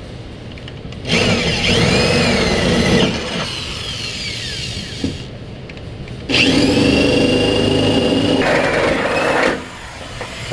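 Power drill with a 9/16-inch bit drilling out mounting holes to final size in a pickup's sheet-metal bed. It cuts in two spells of about two and three seconds, the bit squealing high with a pitch that rises and falls, quieter in between.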